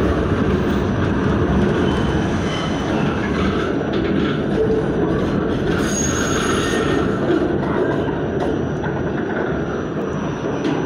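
New York City subway train running at speed, a loud, steady rumble and rattle of wheels on rails. Wheels squeal briefly around the middle, and a thin high whine sets in near the end.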